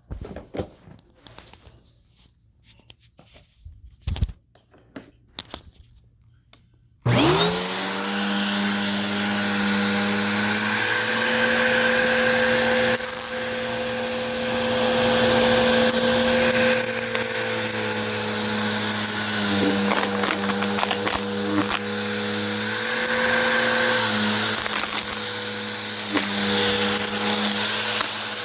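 A few light clicks and knocks, then about seven seconds in a Bissell vacuum cleaner switches on, its motor spinning up with a rising whine and settling into a steady loud run. Its pitch dips and recovers now and then.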